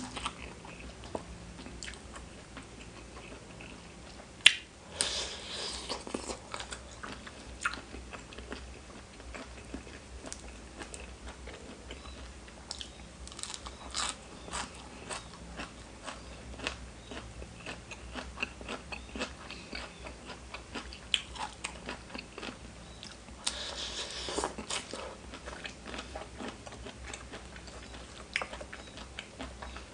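Close-miked eating of spicy seafood papaya salad with raw vegetables: steady chewing with many small crunchy bites, and two louder stretches of crunching, one about five seconds in and one later on.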